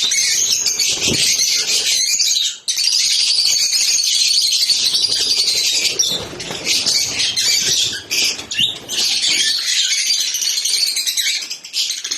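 Lovebirds chattering: a dense, continuous stream of shrill high chirps and squeaks, with a brief break about two and a half seconds in.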